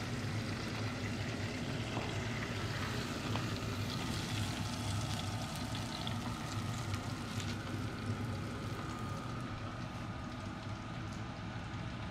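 Hot oil crackling and sizzling as food deep-fries, over a steady low kitchen hum.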